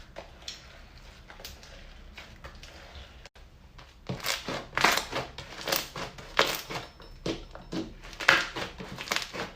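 Slime being squished and worked, giving repeated crackling, crunching pops: faint at first, then much louder from about four seconds in.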